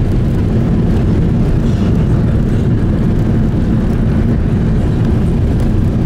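Steady, loud low rumble in the cabin of an Airbus A380 on the runway just after touchdown: engine and runway noise as the airliner slows.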